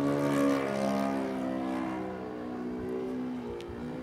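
Enya 120 model-airplane engine on an RC biplane, running steadily in flight overhead. Its drone fades slightly about two seconds in and dips in pitch near the end before climbing again.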